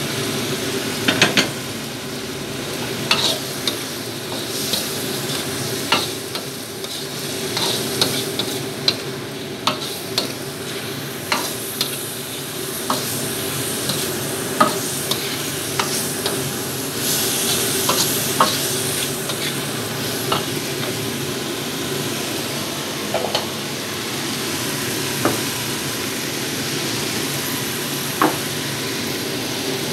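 Stir-frying in a wok: pork, tofu and leeks sizzling steadily in hot oil, with irregular scrapes and clacks of the spatula against the wok every second or two, a cluster of louder clacks about a second in.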